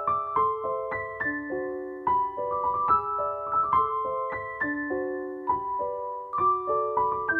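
Background music: a gentle piano tune of sustained notes and chords.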